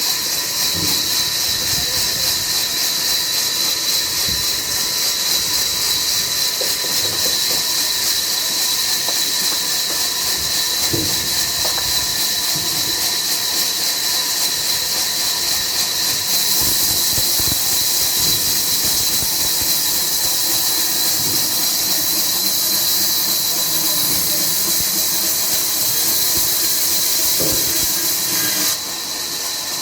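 Sawmill machinery running with a steady, loud, high-pitched hiss and squeal, with scattered knocks underneath. The hiss steps up slightly about halfway through and dips just before the end.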